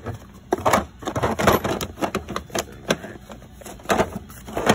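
Plastic drill-bit case being handled, snapped shut and set back into a toolbox drawer among other cases: a run of irregular clicks, clacks and knocks.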